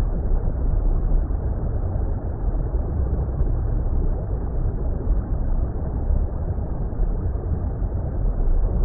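Steady, muffled water rumble: a continuous deep noise with no high end and no separate splashes or events.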